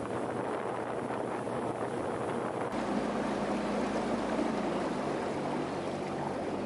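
Motorboat under way: its engine running with wind and water rushing past. About two and a half seconds in, the sound shifts to a steadier, lower engine hum.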